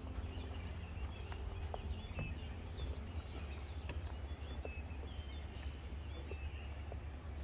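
Garden ambience: birds calling in short, repeated chirps over a steady low rumble, with a few faint clicks.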